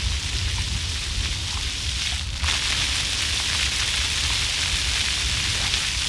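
Floor fountain jets spraying up from ground nozzles and splashing back onto wet paving: a steady hiss of falling water that gets louder about two and a half seconds in.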